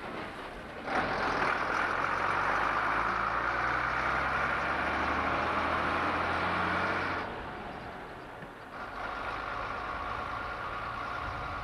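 Autosan H9-21 bus's diesel engine pulling away: it comes up abruptly about a second in, runs loud for several seconds, then drops off as the bus moves away down the road.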